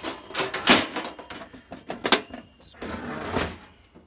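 Clunks and knocks of a Coleman camp grill being handled and tipped up onto its side on a wooden picnic table, with a brief metallic ring about two seconds in.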